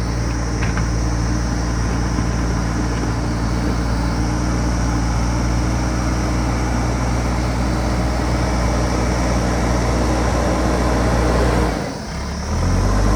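JCB backhoe loader's diesel engine running steadily. About twelve seconds in the sound dips briefly, then comes back at a different pitch.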